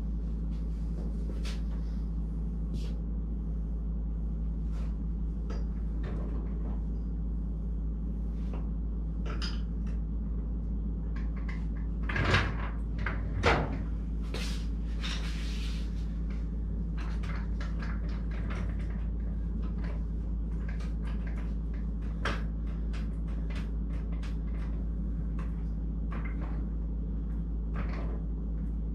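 Scattered clicks and knocks of hands and tools working around an engine hanging in a car's engine bay, with two louder clunks about halfway through, over a steady low hum.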